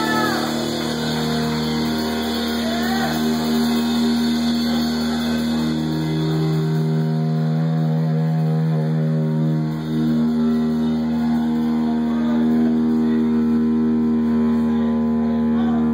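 Live stoner-metal band playing a slow, droning passage: long sustained electric guitar and bass notes ringing on top of each other, with a few short sliding high notes about three seconds in and no drumbeat.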